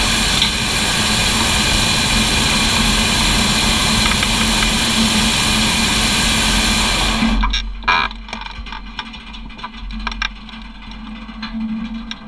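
Hot air balloon propane burner firing in one long, loud, steady roar that cuts off suddenly about seven seconds in. Scattered light clicks follow.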